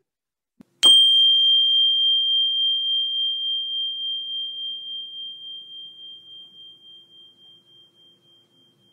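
A small meditation chime struck once about a second in, ringing one clear high tone that pulses evenly as it slowly fades away over about eight seconds.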